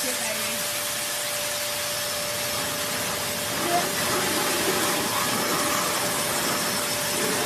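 Forced-air blower dryer running steadily through its hose: a loud, even rush of air with a steady motor whine.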